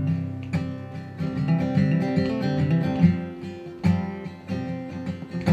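Acoustic guitar strummed, ringing chords with several sharp strokes, and no singing over it.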